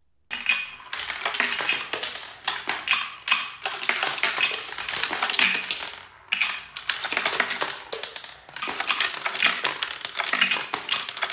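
Coins clattering through a wooden coin-sorting piggy bank, clicking and rattling down its wooden ramps and guides and dropping into the catch basins. A dense run of rapid ticks with two short lulls partway through.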